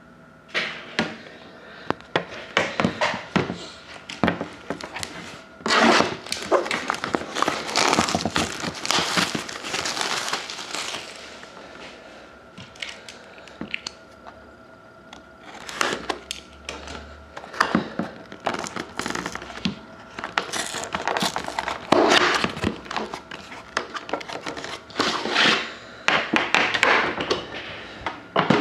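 Wrapping on a sealed box of trading cards being torn open and crumpled by hand: irregular crinkling and tearing, heaviest in two long stretches.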